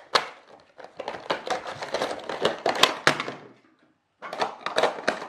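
Rapid clicks and clatter of small hard objects being handled, with a brief pause about three-quarters of the way through.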